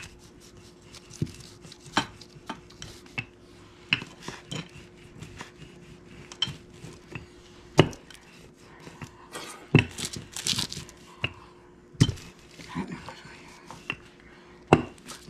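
Wooden rolling pin rolling out biscuit dough on wax paper on a kitchen counter: irregular sharp knocks and taps, the loudest about 8, 10, 12 and 15 seconds in, with the wax paper crinkling now and then over a faint steady hum.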